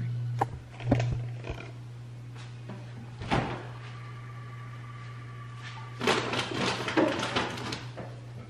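Refrigerator door opened with a knock about three seconds in, then packages rustling and clattering as someone rummages inside the fridge, over a steady low hum.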